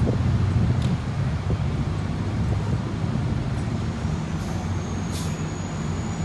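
Fire engine's diesel engine running steadily at the scene, a low rumble, with a few brief hisses in the second half.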